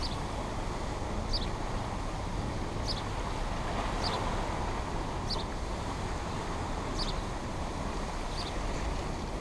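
Steady rush of water churning out of a dam spillway, with a short high chirp repeating about every second and a half.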